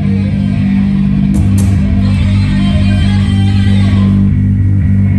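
Electric guitar and bass guitar playing loud, held low notes through stage amplifiers during a heavy metal band's sound check.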